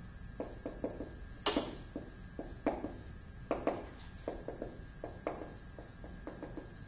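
Dry-erase marker writing on a whiteboard: a quick run of short strokes as letters are drawn, one stroke louder than the rest about a second and a half in.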